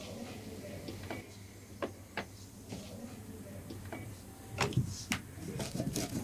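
Knife cutting a slab of jaggery brittle (chikki) on a wooden chopping board: scattered sharp clicks and taps, turning into a denser run of cracks and knocks about four and a half seconds in.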